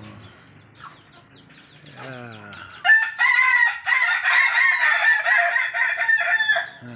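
A rooster crowing one long, wavering crow that lasts nearly four seconds, starting about three seconds in.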